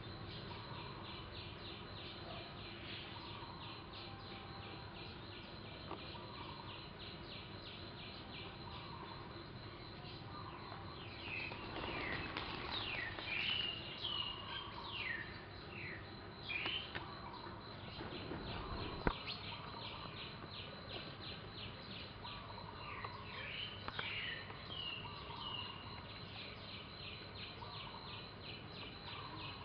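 Outdoor ambience: an insect chirps in a fast, even pulse. Birds call in short falling and curving whistles through the middle and again later. A single sharp click sounds about two-thirds of the way through.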